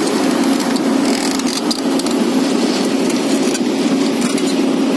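Excavator's diesel engine running steadily close by, a constant low hum with a noisy wash above it.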